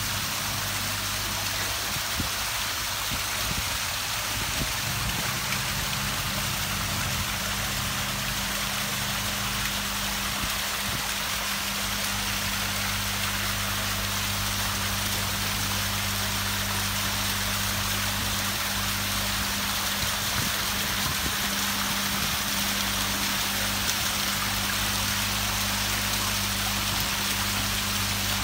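Water cascading down a rock-garden waterfall and splashing into a pond, a steady rushing sound, with a steady low hum beneath it.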